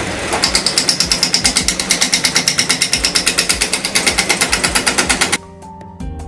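Gouge cutting a square wooden bowl blank spinning on a woodturning lathe: an interrupted cut that knocks rapidly and evenly, about ten knocks a second, each time a corner meets the tool. It stops suddenly about five seconds in.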